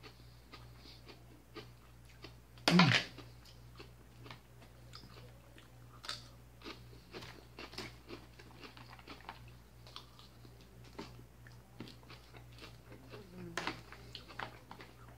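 A person eating a salad of crisp leafy greens: chewing and crunching, with a fork clicking and scraping in a plastic container. One louder thump about three seconds in.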